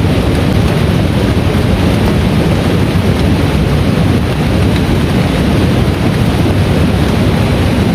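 Heavy rain falling in a steady, loud rush, with no separate hits or claps standing out.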